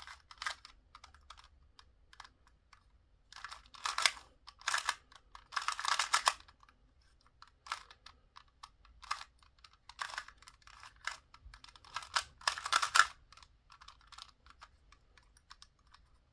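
A 2x2 Rubik's cube being turned by hand: quick runs of plastic clicking and clacking, in bursts with pauses between, the busiest around four, six and thirteen seconds in.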